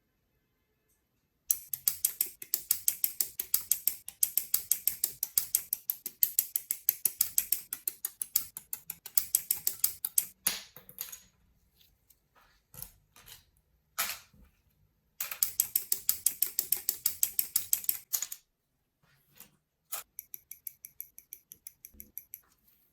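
Plastic parts of a Gunpla model kit clicking in quick, even runs of about four to five clicks a second, with a long run, then a few single clicks, then a second run and a softer one near the end.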